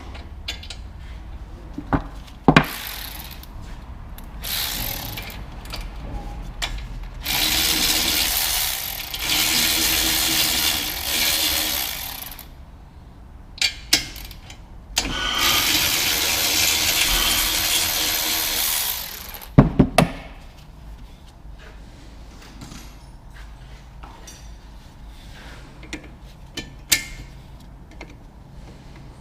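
A power tool runs in two long bursts of a few seconds each, between sharp metallic knocks and clinks of tools being handled.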